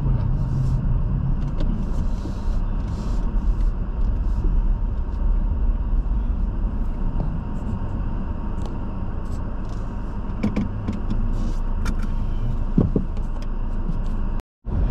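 Steady engine and road rumble of a car being driven, with a few light clicks and knocks. The sound drops out completely for a moment near the end.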